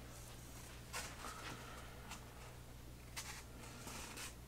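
Quiet room with a steady low hum, and a few faint scrapes and knocks as large laser-cut wooden kit sheets are handled, once about a second in and again just after three seconds.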